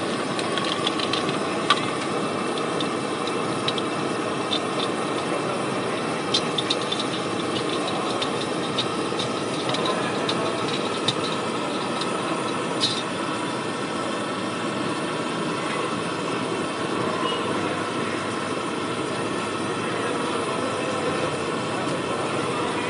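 Fuluri fritters deep-frying in a black iron kadai of hot oil, the oil bubbling steadily over a continuous low rumble, with scattered sharp clicks from spattering oil and the slotted spoon, the sharpest about a second and a half in.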